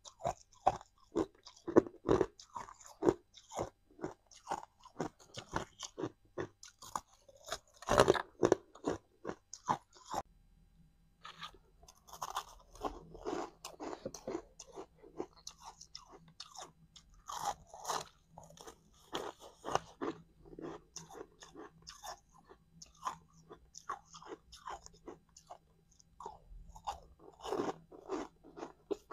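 Close-miked ice eating: a person bites and chews hard chunks of ice in a fast series of sharp, loud crunches. About ten seconds in it changes to chewing crushed ice, with softer, grainier crunching.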